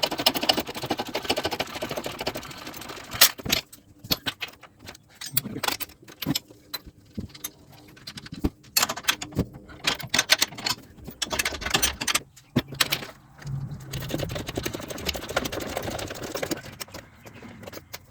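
Socket wrench ratcheting in runs of fine rapid clicks, with metal tools clinking and a few sharp knocks, as the three 15 mm nuts on top of a Ford Ranger front strut are undone.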